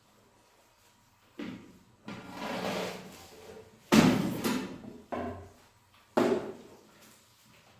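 A few sudden knocks and bangs with a longer scraping stretch, like things being moved or shut around a house; the loudest knock comes about four seconds in.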